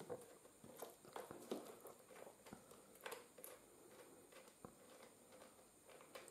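Near silence with faint, scattered clicks and scrapes of hands fitting a cable's ring terminal onto a battery's negative terminal post.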